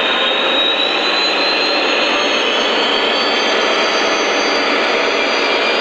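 Lionel O-scale model trains running on the track: a loud, steady rolling rumble of wheels and motors, with a faint high whine that slowly rises in pitch.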